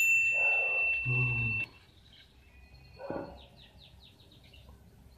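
A sparkle chime sound effect: one bright, high ringing tone that starts sharply and holds for under two seconds. About four seconds in comes a short, quick run of faint bird chirps.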